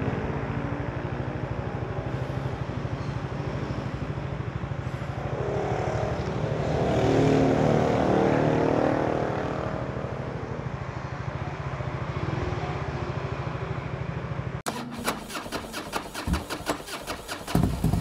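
Motor scooter engine running steadily, swelling louder around seven to nine seconds in and easing back. About fourteen and a half seconds in the engine sound cuts off abruptly and an uneven rapid rattling takes over.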